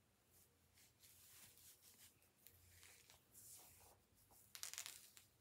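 Faint scratchy rustling of a stretchy wig cap being pulled down over the hair, with a louder rustle near the end.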